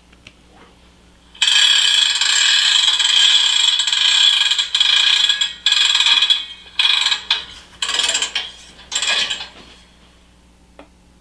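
Sound effect of a railcar handbrake being wound on: a ratcheting clatter, continuous for about three seconds, then in several short bursts over the next five seconds. It marks the handbrake being set on the tank car just spotted.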